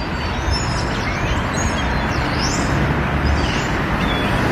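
Steady road traffic rumble, slowly growing louder, with small birds chirping faintly and briefly over it.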